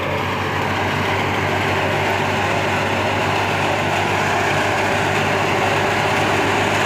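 Wheat thresher running steadily as wheat sheaves are fed into it: a loud, continuous machine drone with a constant low hum under an even rushing noise.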